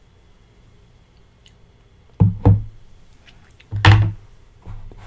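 Tableware knocking on a table: two quick thuds about two seconds in, a louder thud near four seconds, then a few light clicks, as a fork and plate are handled.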